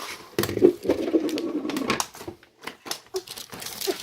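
Quick plastic clicks and rattles as the giant plastic mystery egg is opened and the toys packed inside are handled, busiest in the first two seconds.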